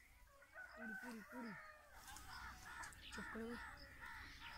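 Faint birds calling: three short, low calls about a second in, then a run of short higher calls repeating about three times a second.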